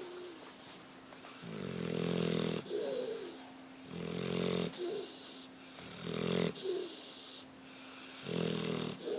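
English Mastiff snoring in a steady rhythm, four breaths about two seconds apart. Each is a drawn-out, buzzing snore followed by a shorter, higher-pitched sound.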